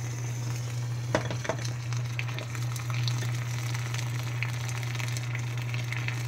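Immersion electrode boiler heating a glass of water on 120-volt household power, the 240-volt heater running at reduced power: the water sizzles and crackles with bubbles, with a few sharper crackles about a second in, over a steady low electrical hum.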